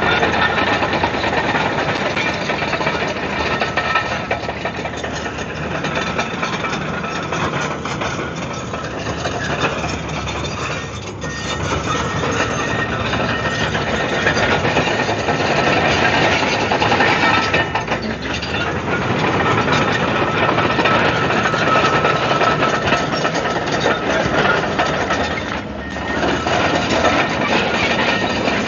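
Komatsu D155AX-7 bulldozer's diesel engine running steadily and loud as the machine works, easing briefly a couple of times.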